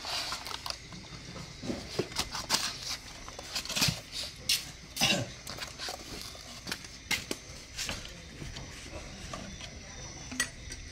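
Hands handling a used two-stroke brush-cutter engine head, making scattered knocks and clicks of its plastic housing and metal parts against the bench; the engine is not running.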